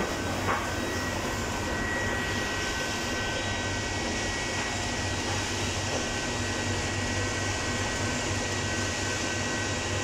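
Roll-to-roll film converting machine running, feeding printed membrane-switch film over its rollers: a steady mechanical hum with a constant high whine.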